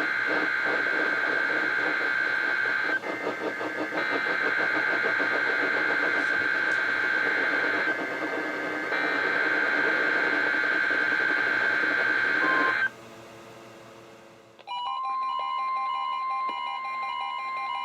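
NOAA Weather Radio Emergency Alert System SAME header: three bursts of harsh, buzzing digital data tones, each about four seconds long with a short break between, opening a Required Weekly Test. About two seconds after the third burst, a set of steady electronic tones begins.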